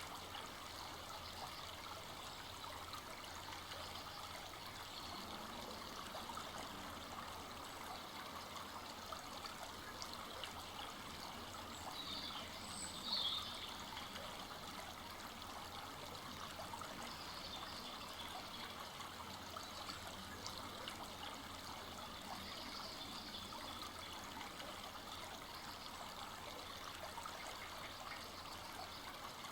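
Full-flowing forest brook babbling and trickling steadily over its bed. A brief high chirp sounds about midway.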